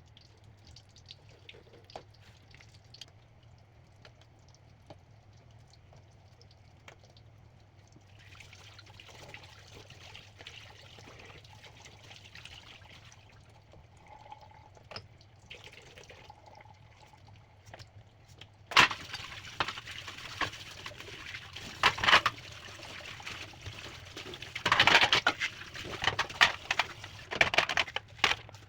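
Kitchen water: a soft hiss of running water from about eight seconds in, then from about nineteen seconds loud, irregular splashing with sharp knocks, as of water from a tap hitting things in a sink.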